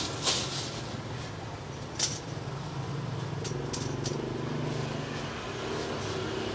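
A steady engine drone from a motor vehicle, swelling for a couple of seconds midway, with short crackles of a large plastic bag being opened and filled with bagged fried bread.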